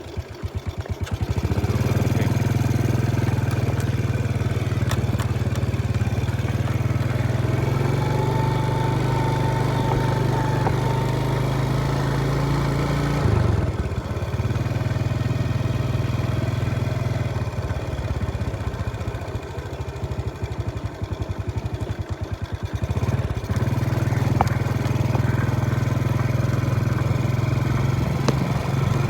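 Small petrol engine running steadily. It comes up within the first second, breaks off briefly about 13 seconds in, then picks up again.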